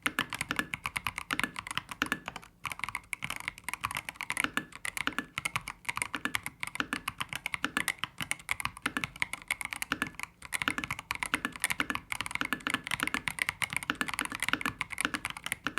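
Fast, continuous typing on a CoolKiller CK98 mechanical keyboard: a dense run of key clicks from its transparent tactile switches, damped inside by three layers of sound-absorbing cotton. The typing breaks off briefly twice.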